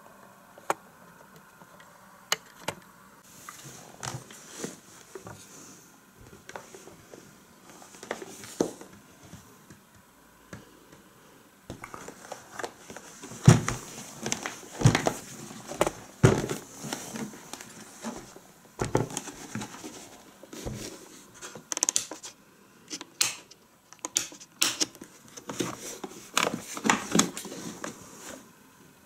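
Plastic housing of an Ambiano KM2014DGT food processor being handled by hand: scattered clicks, knocks and rubbing as it is touched and turned, sparse at first and busier from about halfway.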